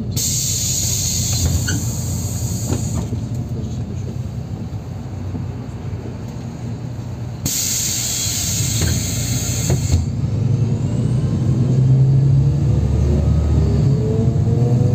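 Cabin of a NefAZ 5299 city bus under way: steady engine and road rumble, broken twice by a hiss of compressed air from the bus's air system lasting two to three seconds, at the start and about halfway. Over the last few seconds the engine grows louder with a rising whine as the bus picks up speed.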